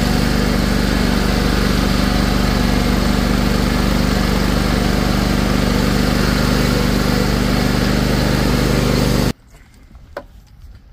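Toro stand-on mower's engine running steadily as the machine is driven across grass. The engine sound cuts off suddenly about nine seconds in, leaving quiet outdoor background with a single light knock.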